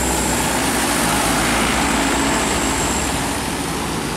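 Mitsubishi Fuso truck's diesel engine running as it passes close and drives away, with tyres hissing on the wet road.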